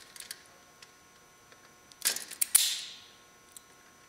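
Spring-loaded hand wire stripper gripping a wire and pulling the insulation off its end: a quick burst of clicks and a snap about two seconds in, as the jaws clamp and spring open.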